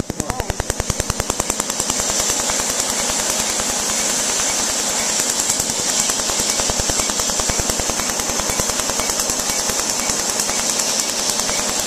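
Tattoo-removal laser firing a rapid, evenly spaced train of snapping pulses against the skin, over a steady hiss of cooling air blown onto the treated spot.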